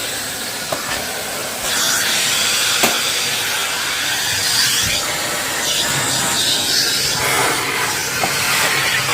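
Vacuum cleaner running with a steady hiss of suction, getting louder and brighter about two seconds in, with a few light clicks.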